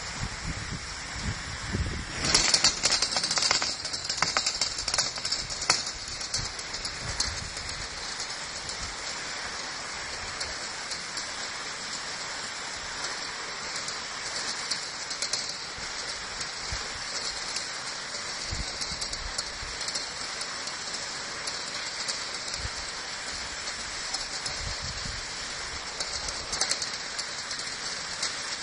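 Skis sliding up a platter-lift track on hard, icy snow: a steady hissing scrape, with louder crackling stretches a couple of seconds in and again near the end.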